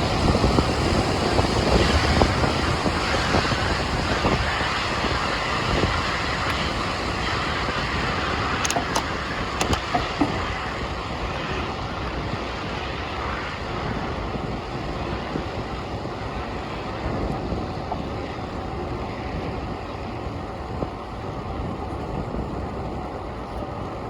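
Wind rushing over the microphone of a camera riding along on a bicycle, mixed with city street traffic; the rush eases somewhat after the first half. A few sharp clicks come about nine to ten seconds in.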